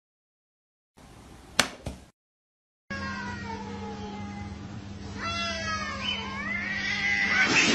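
Starting about three seconds in, a cat yowling in long, wavering calls that rise in pitch toward the end, a threat yowl from a cat with its back arched at another animal. A steady low hum runs underneath, and a brief click sounds before the yowling.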